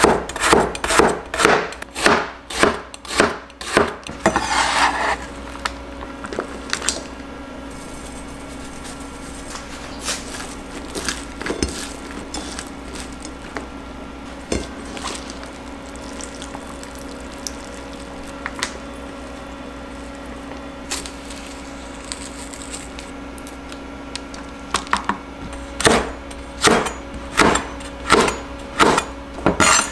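Chinese cleaver slicing bitter melon on a plastic cutting board in quick, even strokes, about two to three a second, with a brief rustle about four seconds in. A long quieter stretch follows, with a steady faint hum and a few scattered clicks, and near the end the cleaver chops red chili peppers at the same quick pace.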